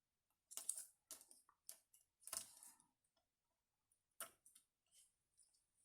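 Faint, scattered clicks and light rustles of paper-craft supplies being handled and set down on a work surface, about eight small sounds spread irregularly with quiet gaps between them.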